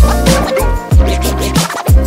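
Background music with a heavy bass beat, the bass hitting about once a second.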